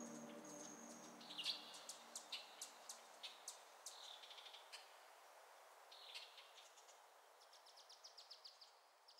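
Faint birds chirping over a soft steady hiss: short high chirps scattered throughout, with a quick trill near the end. The last notes of music fade out in the first second or so.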